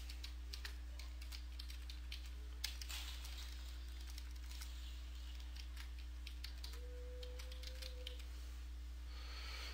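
Typing on a computer keyboard: an irregular run of faint key clicks, over a steady low hum.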